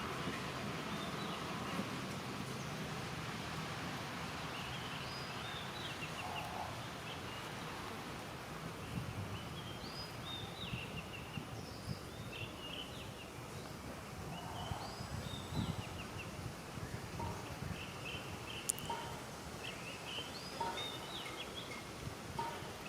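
Steady outdoor background noise with repeated short, high chirping calls from animals scattered throughout.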